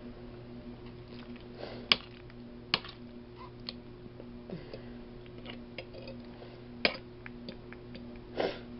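Eating sounds: irregular sharp clicks and taps of utensils against a plate, the loudest about two seconds in and again near seven seconds, with a few soft mouth noises, over a steady low hum.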